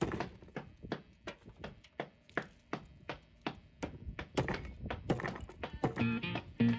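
Repeated hammer blows, about three a second, knocking rusted metal fittings out of an old teak rail. Guitar music comes in near the end.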